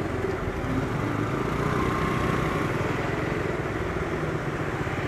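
Motorcycle engine running steadily at idle while creeping forward in slow traffic, with other vehicles' engines running close by.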